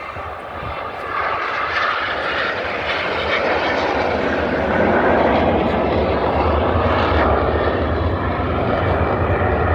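Fixed-wing aircraft flying past, its engine roar growing louder over the first half and then holding steady and loud.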